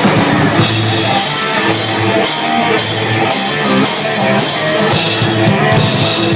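Thrash-metal band playing: distorted electric guitars and bass over a drum kit, with cymbals struck on a steady beat, before any vocals come in.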